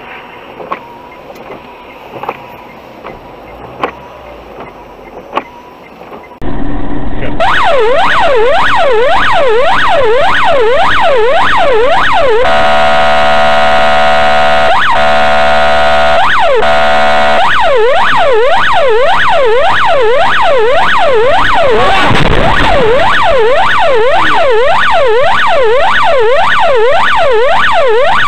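Low cabin sound with scattered clicks, then about six seconds in a loud electronic siren cuts in, yelping up and down about twice a second. For a few seconds in the middle it switches to steady blaring tones with short breaks, then goes back to the yelp.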